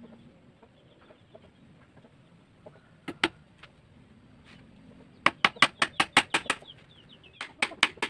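A hammer tapping small nails into a teak wood frame: a couple of strikes about three seconds in, then quick runs of light strikes, about six a second, in the second half.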